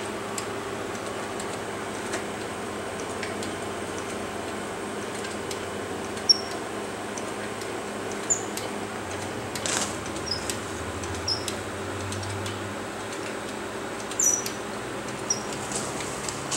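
Foot-pumped hydraulic motorcycle jack raising a motorcycle toward its third safety notch: scattered sharp clicks and several short high squeaks over a steady hum.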